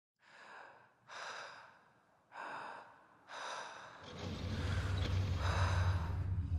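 Four short breathy whooshes, then from about four seconds in the steady low hum of a 1950s convertible's engine as the car drives up.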